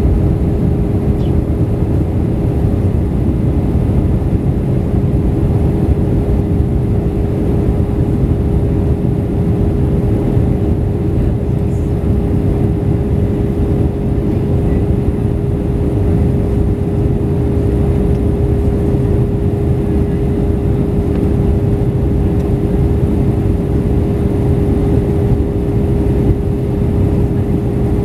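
Airliner cabin noise during the approach: a steady, loud low rush of engine and airflow noise with a constant hum running through it.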